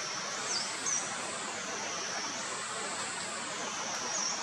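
Outdoor forest ambience: a high insect drone that wavers up and down in pitch every couple of seconds over a steady hiss, with a few short bird chirps.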